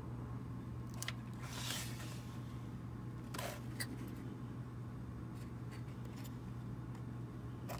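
Faint handling noises of a plastic model tank car being turned over in the hands: a few light clicks and a brief rub, over a steady low hum.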